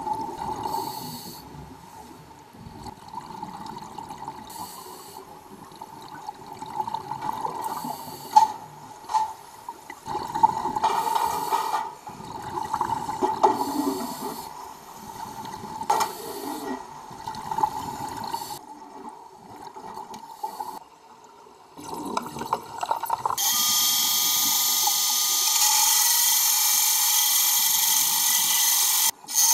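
Uneven underwater bubbling and gurgling of scuba divers at work, with irregular bursts. About three-quarters of the way through, a loud, steady hiss starts as a hydraulic cut-off saw runs underwater.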